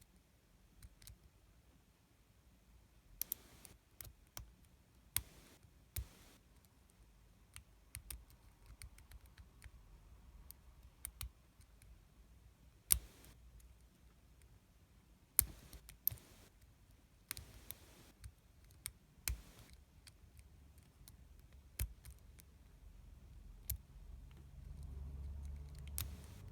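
Scattered, irregular sharp clicks and light taps of small hard objects being handled, with a low rumble of handling noise building near the end.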